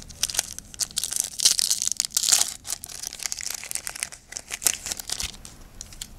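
Foil wrapper of a Yu-Gi-Oh! booster pack being torn open and crinkled by hand. The crinkling is loudest about one and a half to two and a half seconds in.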